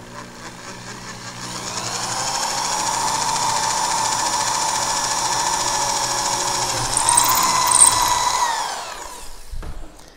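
Corded electric drill boring a hole into a wooden rifle stock. The motor spins up over the first couple of seconds, runs steadily, and winds down with a falling pitch near the end.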